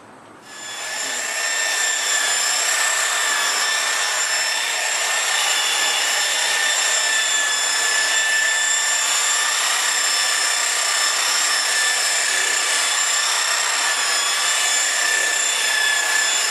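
Electric polisher switched on and running steadily on the paint, a constant high motor whine that starts about half a second in.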